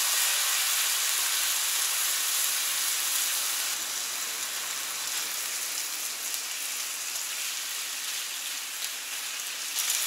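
Raw bacon strips sizzling steadily on a hot Camp Chef FTG600 flat-top griddle, with a few light clicks near the end.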